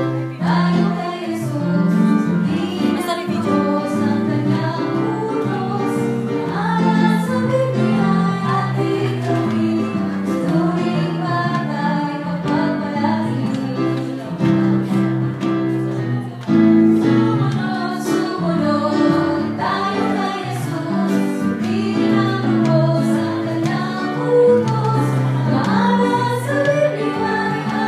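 Upbeat gospel-style song with women's voices singing over guitar, bass and a steady beat.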